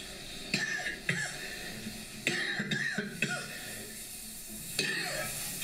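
A man coughing about five times, short harsh coughs spaced a second or so apart: deliberate fake coughs put on to pretend he is sick.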